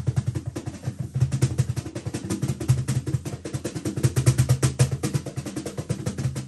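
Kala zebrawood cajon played with the hands in a fast, even roll of strokes, about ten a second, each with a deep boomy body tone. A heel is pressed against the front face, which alters the tone.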